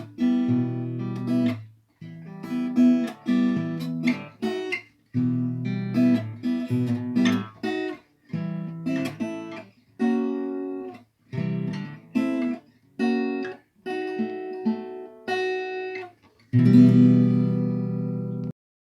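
Acoustic guitar playing the song's closing chords alone: a string of strummed chords, each stopped short with brief silences between them, then one last louder chord held about two seconds before it is cut off.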